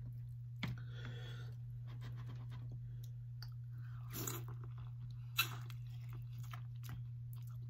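A person chewing and crunching seafood-boil food close to the microphone, with small wet clicks and two sharper crunches about four and five and a half seconds in. A steady low hum runs underneath.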